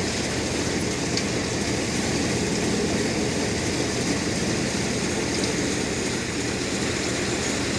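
Tractor-powered thresher running steadily under load as bundles of lentil plants are fed into it.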